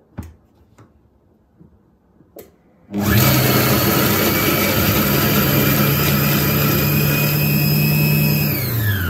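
A few light clicks, then the Monsieur Cuisine Connect's blade motor starts about three seconds in and runs at a steady pitch for about five seconds, chopping onion at speed 5. Near the end the motor cuts out and winds down with a falling whine.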